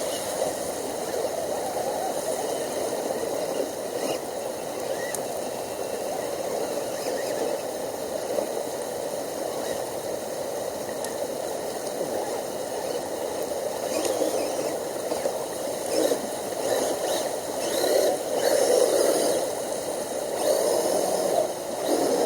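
Brook water rushing steadily, with louder, irregular splashing surges in the last third.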